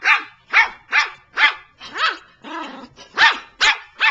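Small long-haired dog barking over and over in short, sharp, high barks, about two a second.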